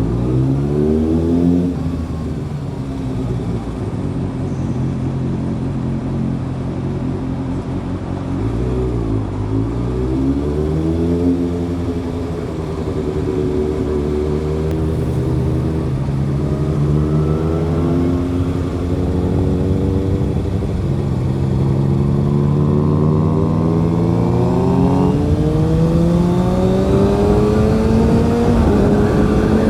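Kawasaki ZX-6R's inline-four engine running under way, its pitch climbing as it accelerates in the first couple of seconds, falling off about nine seconds in, then building again in a long, gradual climb through the second half.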